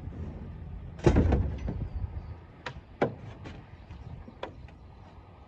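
A heavy knock about a second in, followed by a few sharp light knocks and clicks: metal cage and packing gear being handled.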